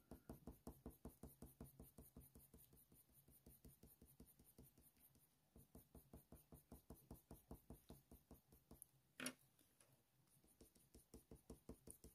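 Faint, rapid short strokes of a Faber-Castell Polychromos colour pencil scratching on hot-press watercolour paper, about five a second in runs with pauses between, and one sharper click about nine seconds in.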